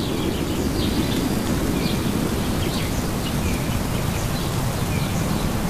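Steady low ambient background noise with faint, scattered high chirps through it.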